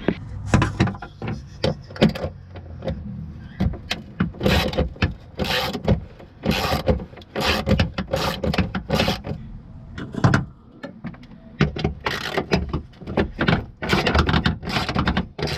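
Quick, irregular runs of clicks and knocks from hand tools working the door-handle bolts inside a pickup truck's door, with a ratchet and socket turning and metal tapping on the door shell.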